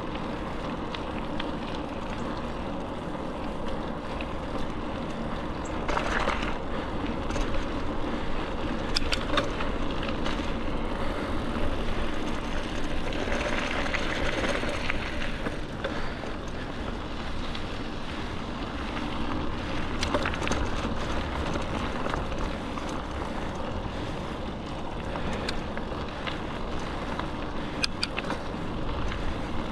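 Mountain bike riding a dirt trail: steady wind on the microphone over the rumble of the tyres, with scattered sharp clicks and rattles from the bike.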